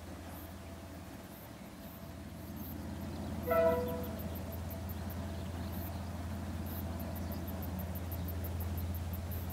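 DL-class diesel-electric locomotive hauling a train, its low engine rumble growing louder. About three and a half seconds in, its horn gives one short toot.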